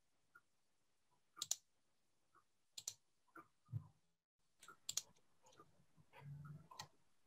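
Several faint, sharp clicks scattered over near silence: a close pair about a second and a half in, more around three seconds and around five seconds, and one near the end.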